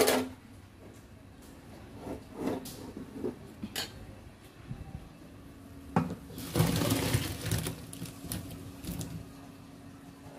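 A metal pot of boiled beef liver knocking a few times, then its hot water and liver pieces poured into a plastic colander in a steel sink: a splashing rush of water about six seconds in that tails off over a second or two.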